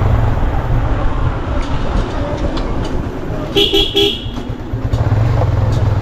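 A vehicle horn beeps three times in quick succession about three and a half seconds in, over the steady running and road noise of a motorcycle ridden on a narrow road.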